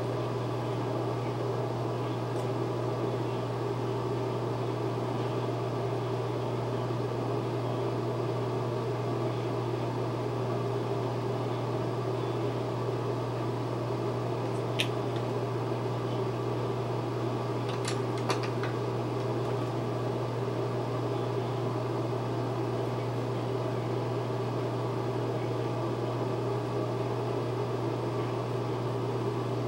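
Steady hum of a small fan motor, even and unbroken, with two faint clicks about halfway through.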